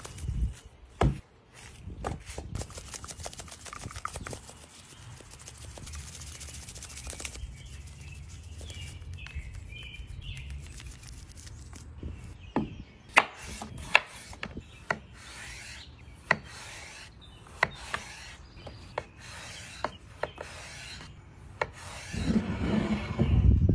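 Dry rub sprinkled and rubbed by hand onto thick raw bone-in steaks, with scattered sharp taps. Near the end a chef's knife cuts through a raw potato, with heavier thuds against the cutting surface.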